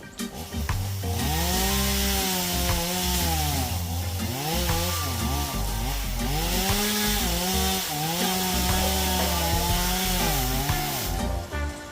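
Chainsaw cutting wood, its engine revving up and dropping again several times as it bites into the cut.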